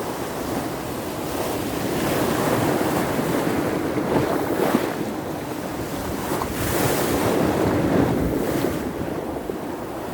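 Baltic Sea surf in a small storm: waves breaking and washing onto the shore in a continuous rush, surging louder twice, with wind buffeting the microphone.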